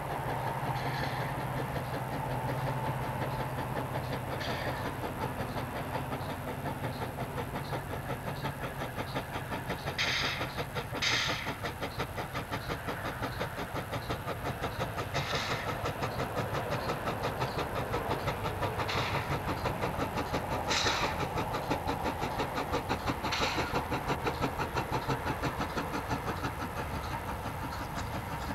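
W class 4-8-2 steam locomotive W934 working a passenger train, its exhaust beating in a rapid steady rhythm. There are short bursts of hiss about six times along the way.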